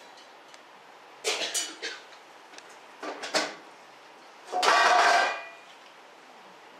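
Round metal-mesh prospecting screens (graduated sieves) clattering and scraping against each other as they are picked up and handled: two short rattles, then a louder, longer metallic scrape near the end.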